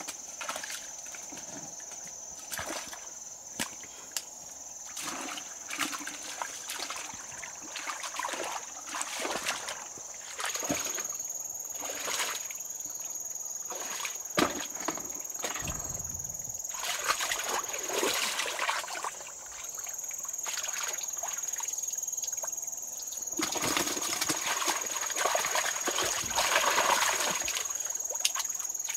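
Repeated splashing and sloshing in shallow water, in separate quick splashes every second or so, heavier and more continuous near the end. A steady high-pitched whine runs underneath.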